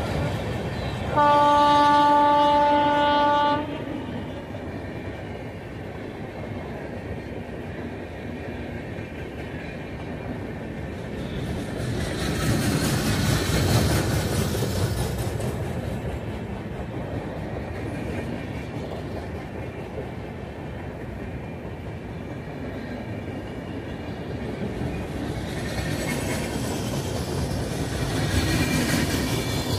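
A passenger train of LHB coaches behind an electric locomotive passing at speed: about a second in, a locomotive horn gives one long blast of about two and a half seconds, followed by the steady rumble of the coaches' wheels on the rails, which grows louder around the middle and again near the end.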